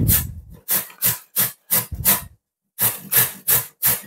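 Raw carrot being grated by hand on a metal grater: rasping strokes, about three a second, with a short pause a little past halfway.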